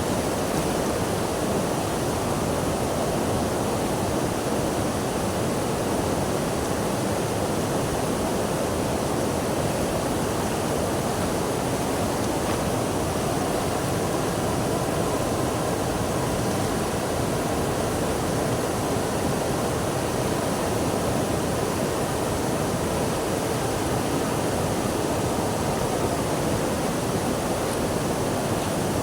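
Steady rush of flowing water, an even, unbroken hiss with no pauses or changes.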